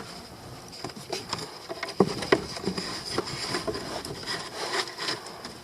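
Hands handling parts: a series of light clicks, taps and rubbing, with two sharper knocks about two seconds in, typical of fitting a cabin air filter and its plastic housing.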